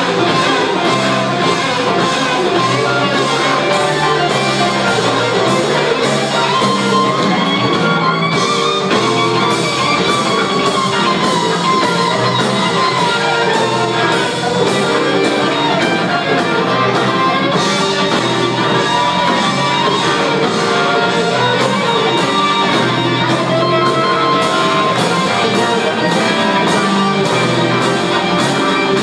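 Live rock band playing a jam, heard from the audience: an electric guitar leads over a steady drum beat and bass.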